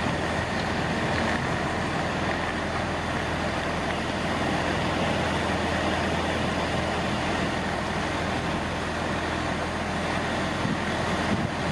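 Class 450 Desiro electric multiple unit running at low speed: a steady rumble and hum with a faint steady whine, unchanging throughout.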